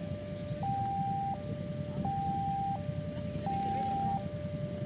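Automatic railway level-crossing warning siren sounding for an approaching train: an electronic tone switching back and forth between two pitches about every 0.7 seconds, over a steady low rumble.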